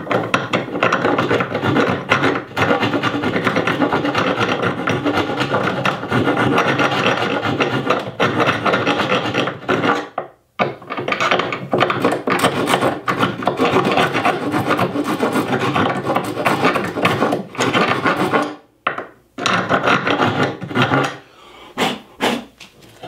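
Coarse hand file rasping back and forth inside a screw hole in a wooden vise jaw liner, enlarging the hole so the vise screw can pass through. Fast, steady strokes stop briefly twice, about ten and nineteen seconds in, and give way to a few lighter scrapes near the end.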